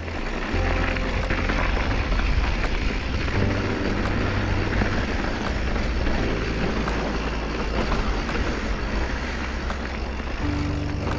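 Wind rushing over an action camera's microphone and mountain bike tyres rolling on a dirt trail, with scattered clicks and rattles from the bike. An upbeat music track with a stepping bass line plays over it.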